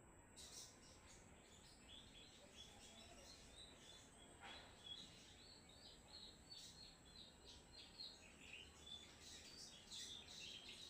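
Crimson sunbird (sogon) singing: a faint, quick run of short, high chirps that goes on without a break.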